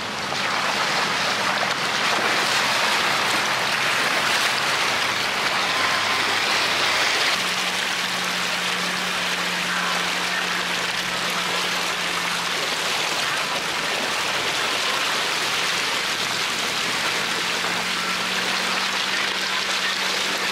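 Off-road 4x4s fording a shallow rocky creek: a continuous rush and splash of water around the tyres, with a steady low engine hum underneath.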